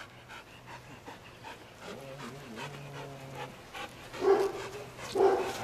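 Trained protection dog panting and whimpering faintly, with two short, louder cries about four and five seconds in.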